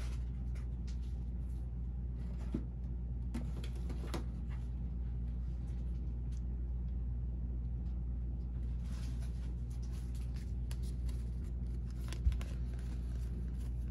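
Topps baseball cards and pack wrappers being handled during pack opening: short, scattered rustling over a steady low hum, with one sharp knock about twelve seconds in.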